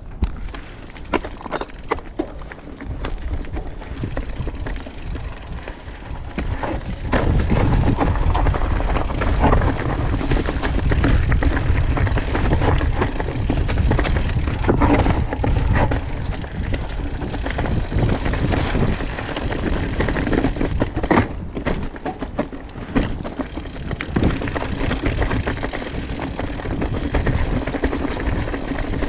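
Mountain bike riding down a rough rocky trail: tyres rumbling over rock with many rattling knocks and clicks from the bike. It gets louder from about seven seconds in.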